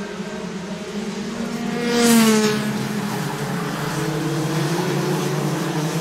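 Several Rotax 125cc two-stroke kart engines racing at high revs. One kart passes close by about two seconds in, and its pitch drops as it goes past.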